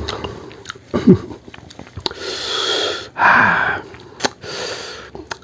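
A person breathing hard through the mouth, hissing in and puffing out, a reaction to chili heat in the mouth. A short grunt comes about a second in, and there are a few small clicks of eating.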